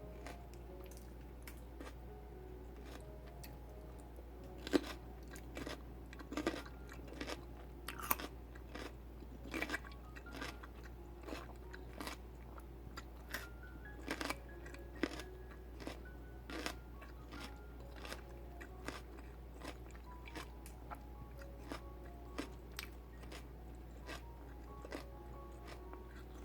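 Raw celery being chewed, with crisp, irregular crunches a few times a second that come thick and fast after the first few seconds.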